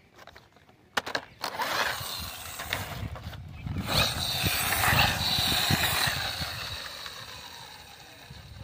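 Plastic friction-powered toy bus pushed along concrete to wind its gear, then let go: a grinding whir with a high whine that starts after a click about a second in, grows loudest midway and fades as the bus rolls away.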